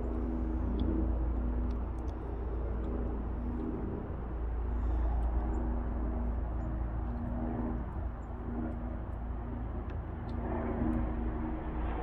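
A steady low motor hum with a deep rumble underneath, over faint scattered clicks of a hand screwdriver turning screws into a car door's metal lock bracket.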